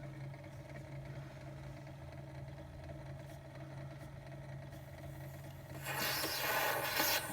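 Edison Diamond Disc phonograph's turntable mechanism running with a steady low hum. About six seconds in, a louder scraping hiss starts.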